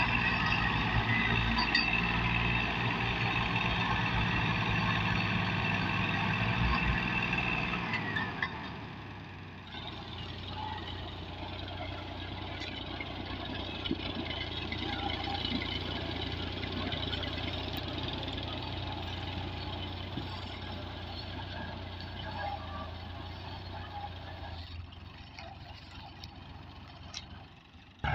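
Diesel farm tractor engines working hard under load, hauling a heavily loaded sugarcane trolley, with a fast, steady firing beat. About eight seconds in the sound drops to a quieter, steady engine running, which fades near the end.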